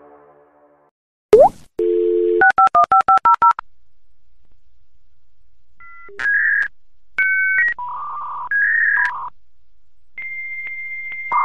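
A dial-up modem connecting over a phone line, as in AOL's sign-on: a click as the line is picked up, a dial tone, and a quick run of about ten touch-tone digits being dialed. After a pause the modem handshake starts, a series of beeping tones and then a steady high tone.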